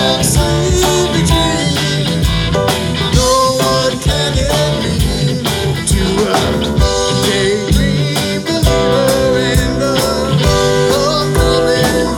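Live band playing an amplified song: electric guitar, bass guitar, drum kit and keyboard, with a steady drum beat.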